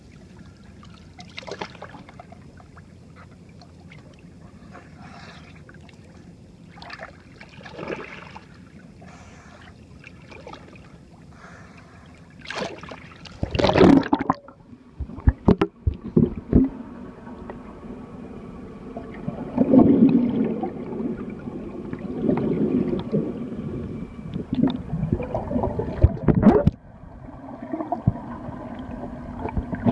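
Water slapping and lapping against a boat's hull at the surface, then a loud splash about 13 seconds in as the microphone plunges under. After that the sound turns muffled: underwater gurgling and bubbling.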